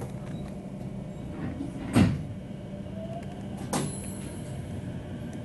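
Electric train running, heard from inside the driver's cab: a steady low hum, with two sharp clunks about two seconds in and near four seconds in, the first the louder.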